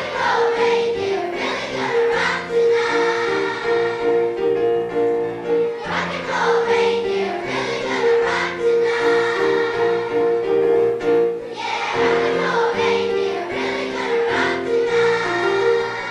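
Music: a children's choir singing an upbeat song over its accompaniment.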